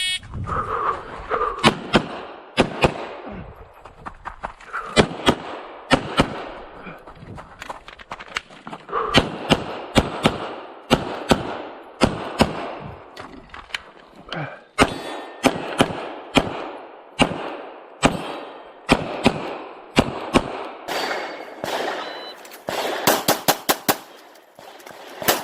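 9mm Glock 34 pistol firing a USPSA stage: shots in quick pairs and rapid strings, broken by short pauses. The shots come right after the start buzzer.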